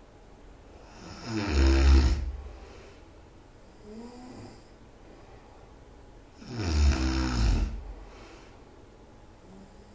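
A person snoring very loud in sleep: two long, rough snores about five seconds apart, with a faint, short pitched breath between them.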